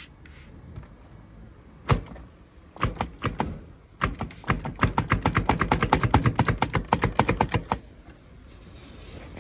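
A single loud knock, a few more knocks a second later, then a fast run of sharp taps, about six a second for nearly four seconds.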